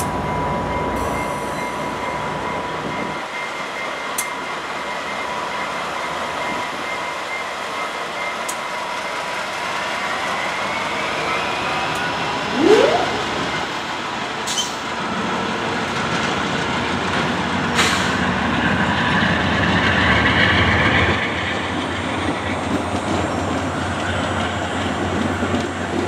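VIA Rail passenger train rolling past: a GE P42DC diesel locomotive goes by in the first few seconds with a deep rumble, then LRC coaches follow with steady wheel-on-rail noise. A few sharp clanks and a faint high wheel whine run through the middle.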